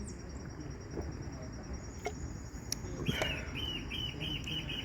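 Outdoor ambience of steady high-pitched insect chirring, crickets, with a bird joining about three seconds in: a quick series of about ten short repeated notes, roughly six a second, each dropping a little in pitch.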